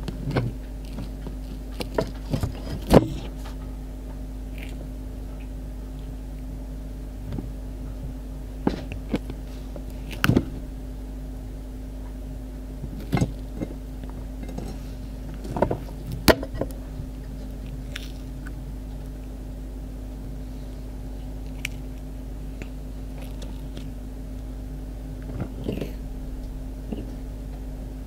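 Central Asian tortoise biting and chewing cucumber: crisp crunches at irregular intervals, some seconds apart, over a steady low hum.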